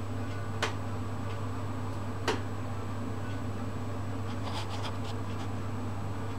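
Steady low electrical hum, with two sharp clicks about a second and a half apart and a quick run of faint ticks later on.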